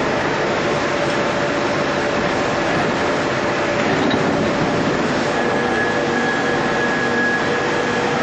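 Ring rolling machine running: a steady, dense mechanical noise with a faint steady hum in it, and a thin high whine that sets in about five seconds in.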